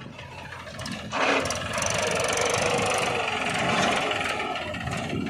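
Small engine of a homemade mini tractor running as it drives along towing a loaded trailer; the sound jumps louder about a second in and then holds steady.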